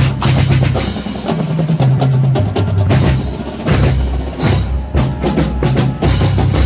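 Marching band drumline playing: snare drums, bass drums and crash cymbals striking in rhythm, over low sustained bass notes that change pitch every half second or so.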